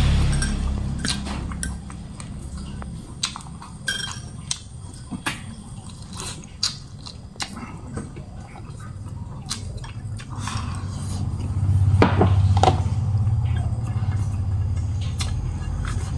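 A person chewing fried salted rat meat close to the microphone: irregular sharp mouth clicks and smacks, over a low steady hum.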